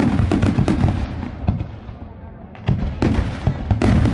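Aerial firework shells bursting in a volley, each burst trailing off into dense crackling pops. The first volley hits at once and fades after about two seconds. A second volley starts about three seconds in.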